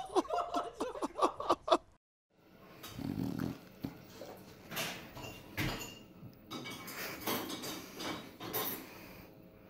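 A dog's rapid, high, yelping cries for about two seconds, cut off suddenly; then a pug's quiet snuffling breaths and soft snorts.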